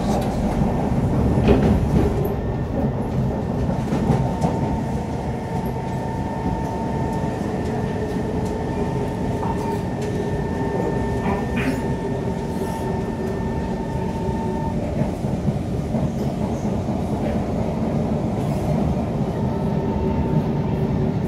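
Interior running noise of a Kawasaki C151 metro train travelling at speed on an elevated track: a steady low rumble with a few clicks from the wheels on the rails. A steady whine runs through it, fading out and back in a few times.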